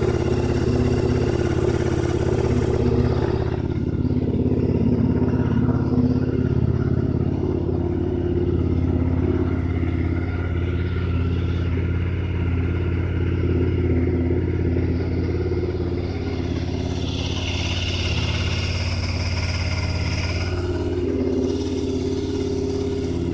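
2003 Honda RC51's 999 cc V-twin engine idling steadily through an aftermarket Sato exhaust. A higher hiss joins for a few seconds near the end.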